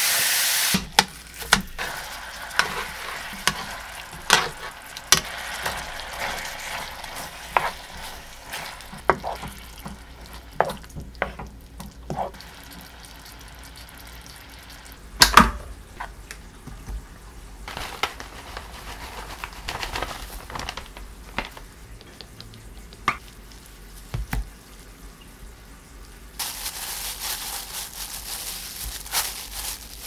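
Spicy boneless chicken feet sizzling in a frying pan, with a run of sharp clacks as they are stirred. About halfway there is one loud knock, and near the end a steady rustling as rice is worked by hand in a glass bowl.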